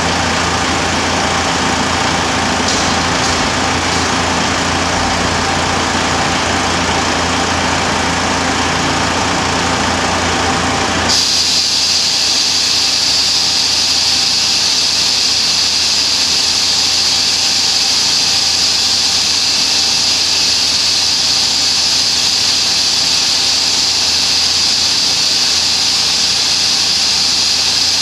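Audi A4 1.9 TDI four-cylinder turbodiesel idling on a chassis dyno, with the dyno cell's large cooling fan running. About 11 seconds in the sound changes sharply: the low engine hum drops away and a loud, steady, high-pitched rush of air takes over.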